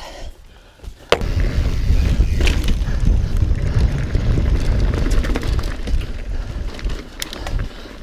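Mountain bike rolling fast down a dirt singletrack: a loud, rough rumble of tyres over the trail mixed with wind buffeting the handlebar-mounted camera, starting with a sharp knock about a second in.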